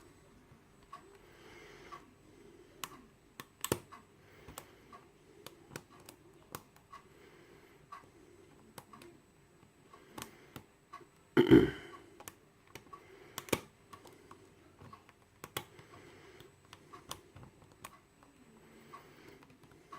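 Hook pick and tension wrench working the pin stacks of a Yale euro cylinder lock, with scattered light clicks and taps as the pins are lifted and set. One louder knock comes about eleven and a half seconds in.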